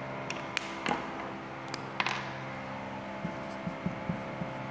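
A few light taps and clicks of a whiteboard marker being handled and set against the board, over a steady low room hum.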